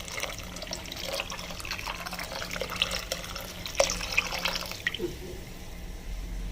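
Thick coconut milk pouring and splashing into a pot of hot, jaggery-sweetened thin coconut milk, with small drips and ticks.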